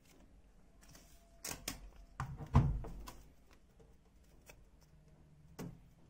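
A few clicks and knocks from handling a washing machine, the loudest a dull thump about two and a half seconds in, with one more click near the end.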